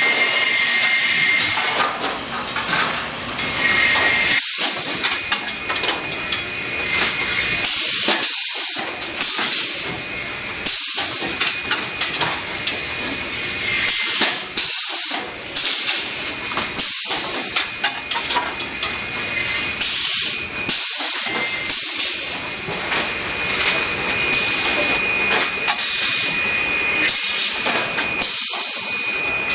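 Cameron Quick Rip rip-saw system running: a steady hissing machine noise with a thin high whine, the low end dropping out briefly every few seconds.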